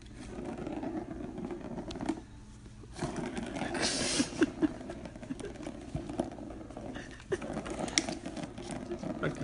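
Plastic ball rumbling around the track of a cat's circular track-and-scratch-pad toy as a cat bats at it, with scattered clicks and a brief scratch on the cardboard pad about four seconds in.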